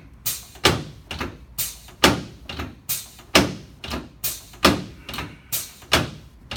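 Sharp knocks coming in pairs, the two strokes of each pair about a third of a second apart and a new pair about every 1.3 seconds, five times over.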